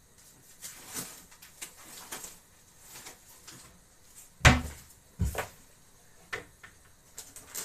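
Kitchen wall cupboard being searched: light rustling and clicks, then a sharp loud knock about halfway through as its door is opened, followed by further knocks of things being moved on its shelves.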